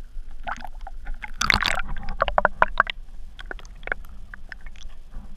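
Sea water splashing and gurgling around a camera as it goes under the surface: a loud splash about a second and a half in, then a run of short bubbling pops and clicks.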